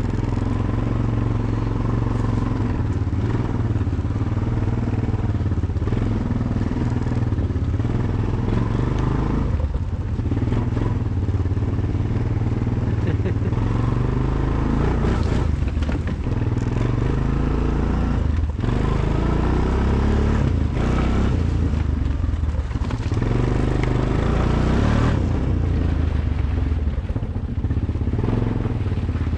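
ATV engine running steadily while the machine is ridden along a trail, its note dipping briefly now and then.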